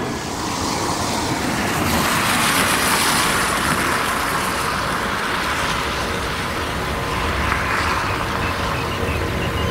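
Jet airliner engines at high takeoff power: a loud, steady rushing noise with a few faint steady tones through it.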